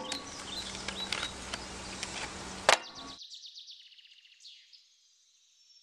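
Camera handling noise with small clicks over quiet outdoor background, then a sharp knock about halfway through. After it, only a thin, high, crackling fizz is left, fading to near silence.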